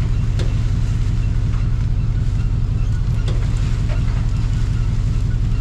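Swamp buggy engine running steadily under way, a deep, even drone.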